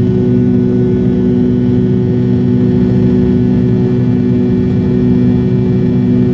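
Cabin noise of a McDonnell Douglas MD-80 in flight: a steady drone from its rear-mounted Pratt & Whitney JT8D turbofans and the airflow, with several fixed low hum tones that do not change.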